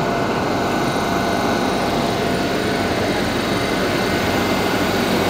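Steady hum and rush of noise inside an Athens Metro Line 3 train car, with a few faint steady tones running through it.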